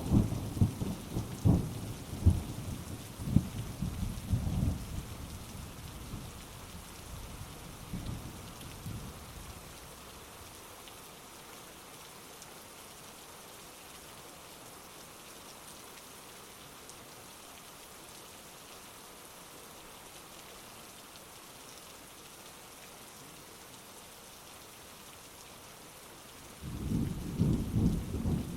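Heavy rain falling steadily, with thunder rumbling loudly at first and fading away over the first ten seconds or so. A fresh peal of thunder breaks in abruptly near the end.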